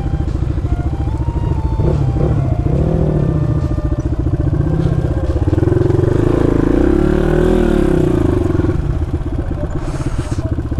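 Single-cylinder dirt bike engine idling with a fast, even thumping. Between about two and nine seconds in, engine pitch rises and falls several times as a motorcycle is revved.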